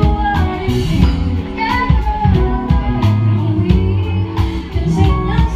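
Live jazz band playing: electric guitar over electric bass and drum kit.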